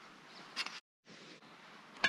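Palette knife scraping thick paint across a canvas: a short scrape about half a second in over faint outdoor background noise, with the sound dropping out completely for a moment just before a second in.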